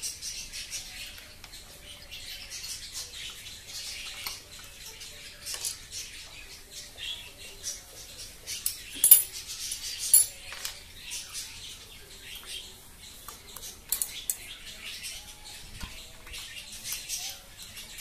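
Plastic push-pins of an Intel stock CPU cooler being pressed down into a motherboard, with scattered small clicks and handling scrapes of plastic and metal. A few louder clicks, around nine and ten seconds in, as pins lock into place.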